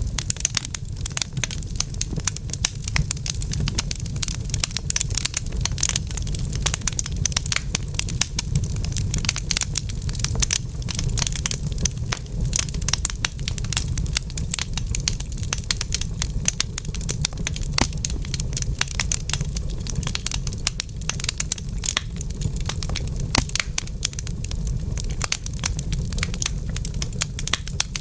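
Wood fire burning in a fireplace, crackling with rapid, irregular pops and snaps over a steady low rumble.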